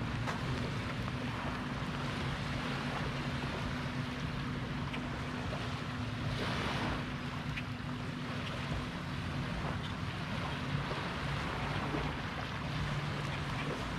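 Small lake waves lapping along a flooded grassy shoreline, with wind on the microphone and a steady low drone underneath. A brief swell of rushing water comes about six and a half seconds in.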